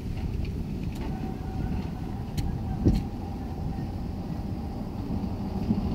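Tram approaching from a distance: a faint whine that rises a little in pitch over a steady low rumble. A single short thump comes about three seconds in.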